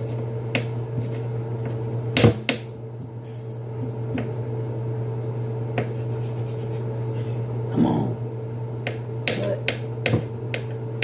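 Kitchen knife cutting food on a cutting board: scattered sharp knocks, the loudest a couple of seconds in, over a steady low hum.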